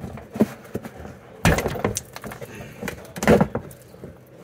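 Plastic push clips being pulled by hand out of a car's plastic wheel-well liner: scattered clicks and plastic scraping, with two louder pops about a second and a half in and again near three seconds.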